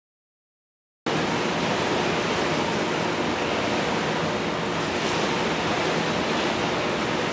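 Silence for about a second, then the steady, even hiss of an indoor swimming pool hall's background noise starts abruptly.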